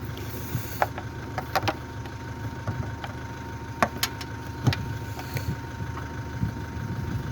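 A handful of sharp clicks and light knocks from parts and tools being handled while a car part is taken off, over a steady low hum.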